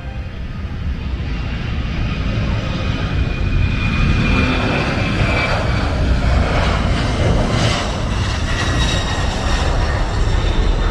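Airliner engines running, a high whine over a broad rush that grows louder over the first few seconds and then holds steady.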